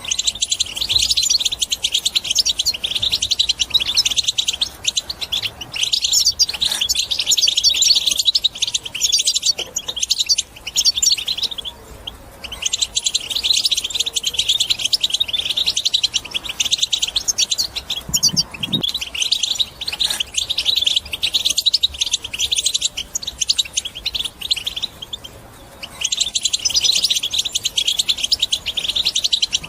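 European goldfinch singing a fast, continuous twittering song in long phrases, broken by a few short pauses.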